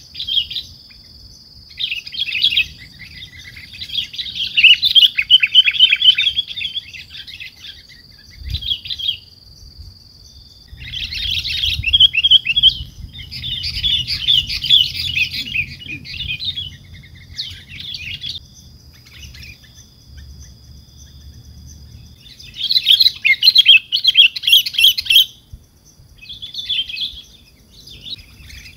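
Sooty-headed bulbuls (kutilang) chattering in repeated bouts of fast, high chirps, each a second or a few seconds long, with short pauses between. A thin, steady high tone runs behind them.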